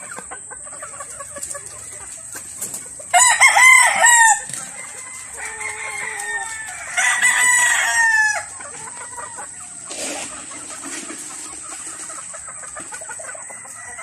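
Gamefowl rooster crowing twice, about three and seven seconds in, each crow a little over a second long. Between the crows, chickens cluck softly as they feed.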